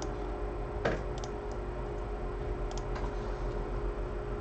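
A few light clicks and taps from handling on a repair bench, the loudest just under a second in, over a steady low hum.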